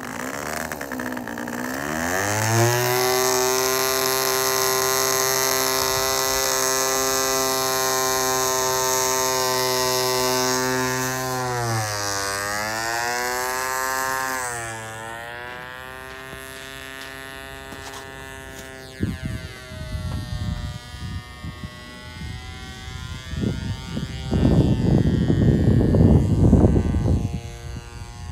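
A KeilKraft Scorpion free-flight model's 1cc engine runs at a high, steady buzzing pitch, and its speed dips and recovers about twelve seconds in. After the hand launch, about fifteen seconds in, the note fades as the model climbs away. Bursts of low rumbling noise follow near the end.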